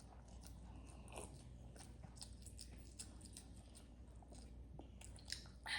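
Faint chewing and eating sounds, with scattered small wet clicks and a sharper click or two near the end.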